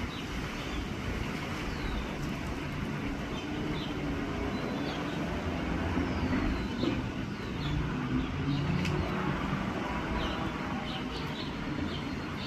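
Short, high bird chirps scattered over a steady low background rumble.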